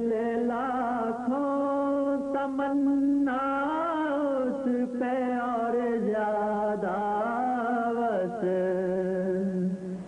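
A man singing a devotional song in long, drawn-out notes ornamented with bends and runs, with no words clearly sung in this stretch.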